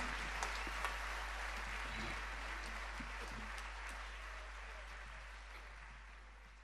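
Audience applause, a dense patter of many hands clapping, fading out gradually over the last few seconds, with a steady low hum underneath.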